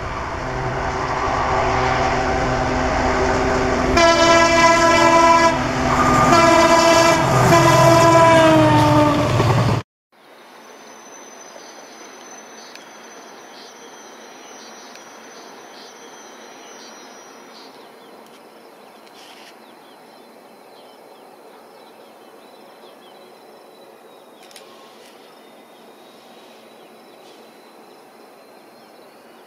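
Diesel locomotive horn sounding in long loud blasts over train rumble, the last blast dropping slightly in pitch, cut off suddenly about ten seconds in. After that comes quiet open-air ambience with a high steady insect trill that stops partway through.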